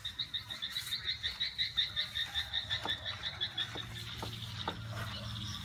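A small animal's call: a fast, even train of short high chirps, about seven a second, that fades out after about four seconds.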